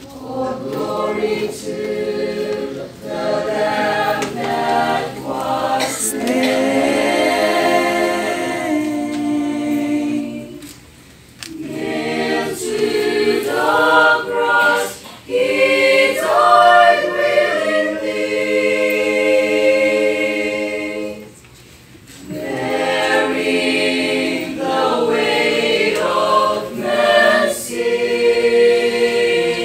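Small choir singing a hymn a cappella in sustained phrases, with brief breaks between them where the sound drops away.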